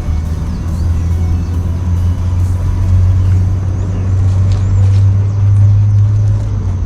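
Background music with a deep, sustained bass that steps up in pitch twice.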